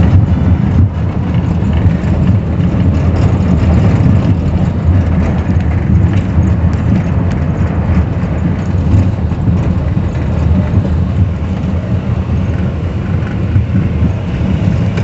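Car driving over a cobblestone street, heard from inside the cabin: a steady low rumble of tyres and engine.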